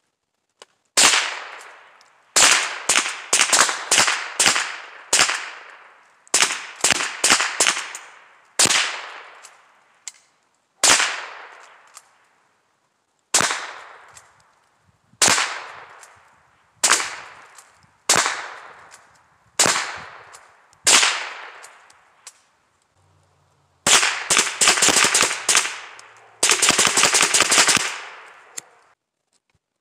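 Handgun shots in singles and quick strings of two to five, each followed by a short fading echo. Near the end come two long strings of rapid fire, the last about two seconds of nearly continuous shots.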